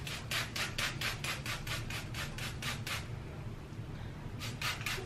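Spray bottle spritzing water onto hair in quick hissing squirts, about five a second, pausing briefly a little after halfway and then starting again.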